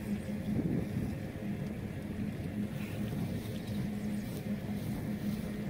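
Wind buffeting the microphone in a steady low rumble, with a steady low hum underneath.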